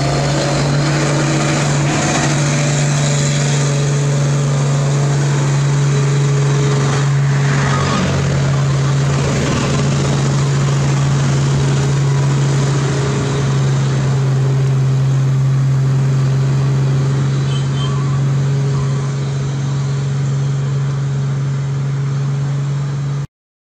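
Heavily loaded Mitsubishi Fuso truck's diesel engine labouring uphill with a steady, deep engine note. It passes close and then draws away, fading a little near the end before the sound cuts off abruptly.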